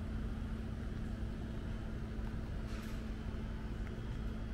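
Steady city background: a low rumble with a constant mechanical hum, and a few faint taps.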